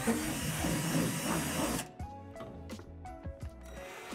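Cordless drill boring out a moulded divot in a plastic panel, running for under two seconds and then stopping abruptly. Background music plays throughout.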